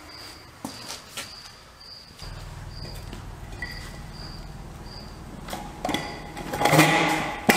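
A cricket chirps steadily, a short high chirp about every two-thirds of a second. Near the end a wheeled transmission jack is rolled across a concrete floor, its casters and frame rattling and knocking.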